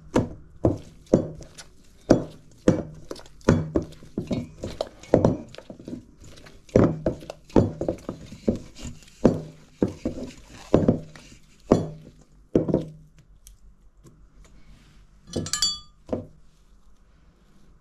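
Soft, sticky bread dough for lángos being squeezed and slapped by hand in a stainless steel bowl, with a thump about twice a second for around thirteen seconds. Near the end comes a brief metallic clink and ring as a metal spoon scrapes dough against the bowl.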